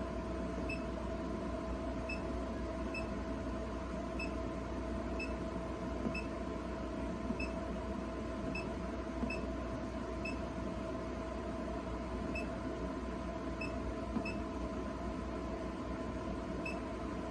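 Faint short electronic beeps repeating evenly about every three-quarters of a second over a steady electrical hum, with a few soft clicks of keypad buttons being pressed.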